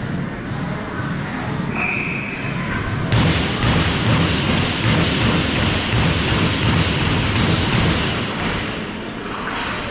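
A rapid string of thumps and knocks over a loud noisy wash in an ice hockey rink. It starts abruptly about three seconds in and dies away near the end. Just before it comes a short high tone.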